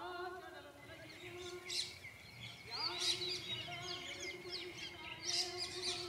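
Many small birds chirping and twittering in quick bursts, over a lower drawn-out tone that comes and goes.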